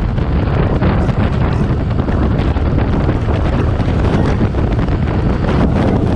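Wind buffeting the microphone: a loud, steady rumbling rush, heaviest in the low end.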